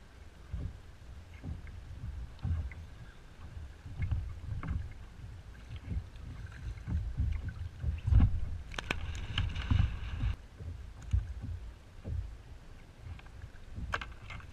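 Strong gusty wind buffeting the microphone in uneven low rumbles, with scattered small knocks and clicks around the kayak. There is a loud thump about eight seconds in, followed by a short burst of hiss and clicking.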